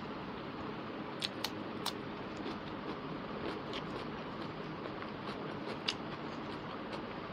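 Close-miked eating by hand: fingers working rice on a plate and chewing mouth sounds, over a steady hiss. Sharp little clicks and smacks break through it, three in quick succession about a second in and a louder one later on.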